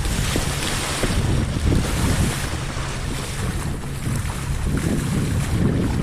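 Wind buffeting the microphone over a steady wash of choppy water splashing against a pedal kayak's hull.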